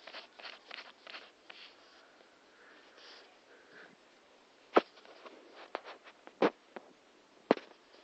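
Handling noise of a hand rubbing and gripping a football held right up against the phone's microphone. It begins with a run of soft quick rustles, then three sharp clicks come about five, six and a half and seven and a half seconds in.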